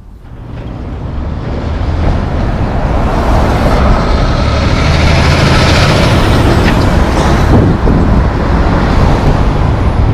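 A big-rig diesel semi-truck pulling a flatbed trailer passing close by. It gets louder over the first couple of seconds, then runs loud with a deep, steady engine note.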